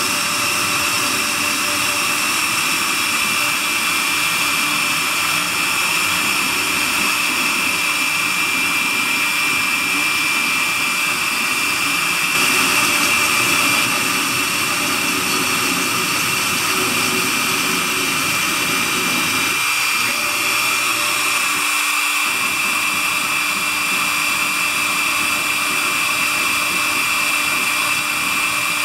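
CNC router spindle running at high speed, a fine tapered bit carving a wooden relief; a steady high whine over the noise of the cut.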